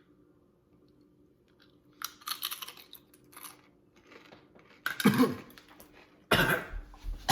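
A person chewing something crunchy in short crackly bites, then coughing and choking on it, with loud harsh coughs about five seconds in and again near the end.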